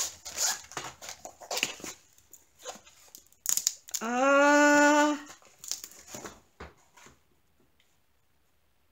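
Paper and plastic packaging of a diamond painting kit rustling and crinkling as it is handled. About four seconds in comes a held voiced sound, a little over a second long, which is the loudest thing.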